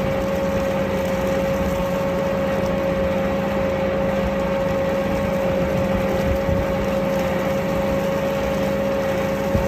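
Feed-mixing machinery running steadily: a constant drone with a steady whine held at one pitch.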